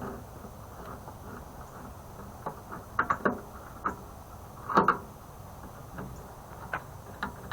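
Scattered light clicks and knocks of a screwdriver taking screws out of a microwave's metal casing, with a quick run of three clicks about three seconds in and the loudest knock a little under five seconds in.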